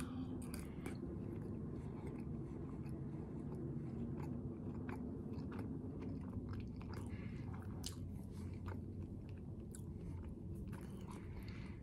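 A person chewing a mouthful of crispy breaded orange chicken, with soft scattered crunches and mouth clicks, over a low steady background hum.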